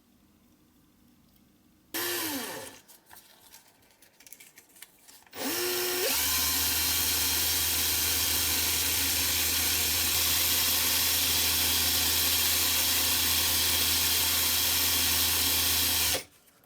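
A small electric power tool, of the drill or rotary-tool kind, run briefly and left to wind down about two seconds in. It then starts again, spins up to speed and runs steadily for about ten seconds before switching off near the end.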